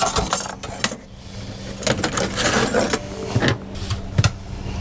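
Clicks, knocks and scraping rustle of hands working loose metal parts and fibreglass insulation from the burner area at the back of an RV absorption refrigerator, over a steady low hum.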